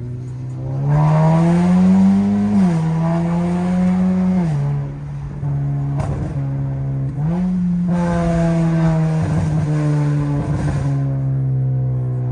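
2015 Acura TLX engine through a muffler- and resonator-deleted exhaust, revved up from idle and held at raised revs, dropping back to idle a few seconds later and then revving up and holding again. The engine is stock and untuned; only the exhaust is changed.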